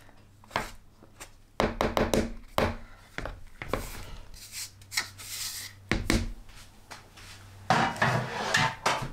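Ladle stirring and scraping through dry flour in a red plastic mixing bowl: irregular rubbing scrapes with a few knocks against the bowl, a busy patch about two seconds in and another near the end.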